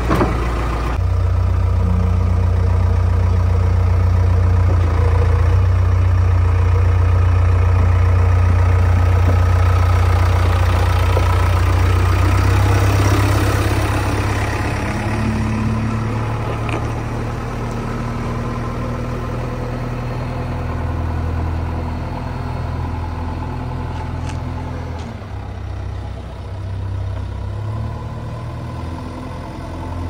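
JCB 3DX backhoe loader's diesel engine idling steadily, a deep low hum that drops a little in level about halfway through.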